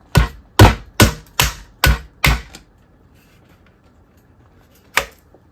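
A hammer striking a chisel wedged under the ABS plastic top cap of a TV switchbox held in a vise: six sharp strikes at about two and a half a second, a pause, then one more strike near the end.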